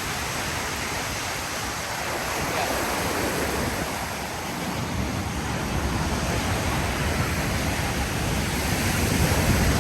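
Ocean surf rushing and washing onto the beach in a steady, even roar, with a low wind rumble on the microphone that grows louder toward the end.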